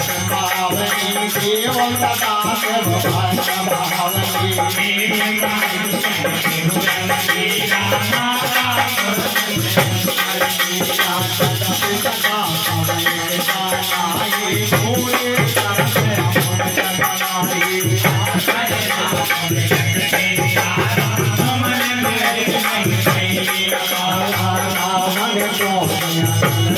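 Devotional group music: a voice singing or chanting through a microphone over a harmonium, with a fast, unbroken rattle of small brass hand cymbals and wooden clappers keeping time.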